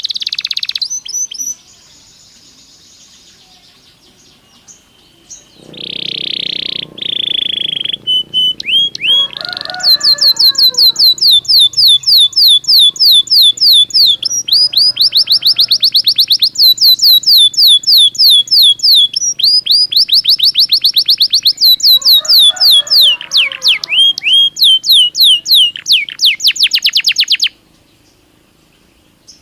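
Belgian canary singing: a short phrase, a pause, a rolling warble, then a long, loud trill of rapid falling notes repeated several times a second, which stops near the end.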